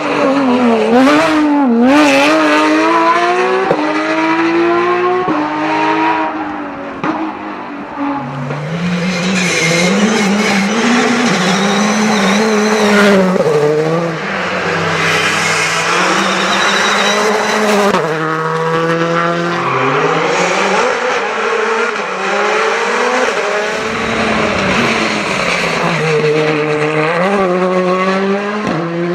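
Rally cars driven flat out on a stage, one after another. Their engines rev up, drop sharply on gear changes or lifts and rev up again, and the tyres scrabble and squeal.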